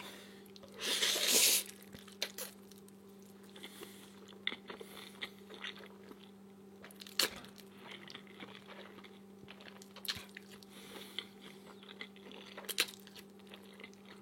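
A person eating close to the microphone: one loud short burst of mouth noise about a second in, then soft chewing and mouth clicks. A steady low hum runs underneath.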